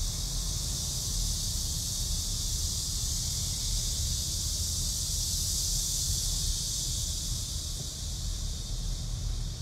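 Steady car cabin noise: a low rumble with an even high hiss over it.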